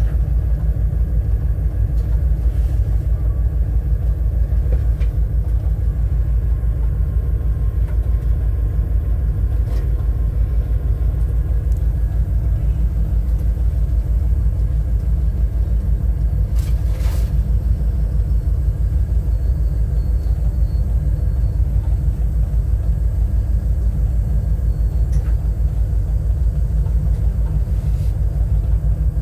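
Diesel locomotive running steadily, a loud deep rumble with a rapid even pulse, heard from inside the cab. A brief higher noise cuts in a little over halfway through.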